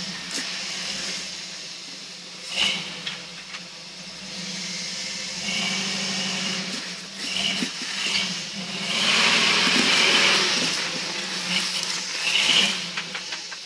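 Off-road vehicle engine running slowly with a steady low hum, under hissing noise that swells for a second or two about nine seconds in, with a few sharp clicks.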